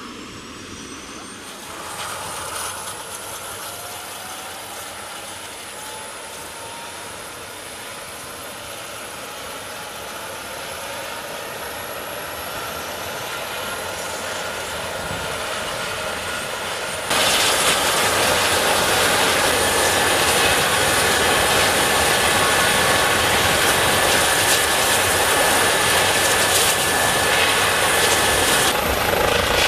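Lions Air EC135 rescue helicopter running on the ground with its rotor turning: a steady turbine whine over the rotor noise, with whine tones rising in pitch in the first few seconds. About 17 seconds in it suddenly becomes much louder and stays so.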